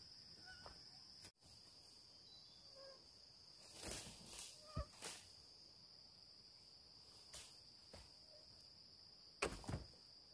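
Forest insects, crickets, trilling steadily at a high pitch, with a few short knocks and rustles from bamboo poles being handled; the loudest cluster of knocks comes near the end.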